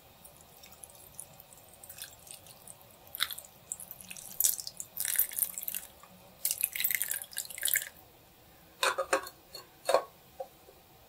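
Food-preparation handling sounds: bursts of small crackling clicks starting a few seconds in, then a few short knocks near the end.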